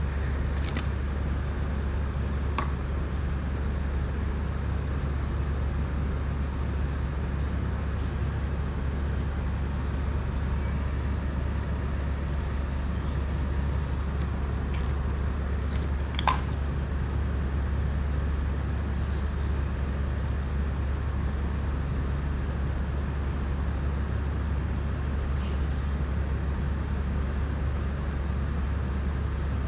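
Steady low hum and hiss throughout, with a few light clicks from small tools and drone parts being handled; the sharpest click comes about halfway through.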